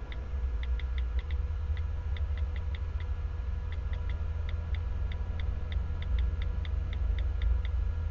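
iPhone on-screen keyboard key clicks as an email address is typed: a quick run of short ticks, about three or four a second, with a short pause a little before the middle, over a steady low hum.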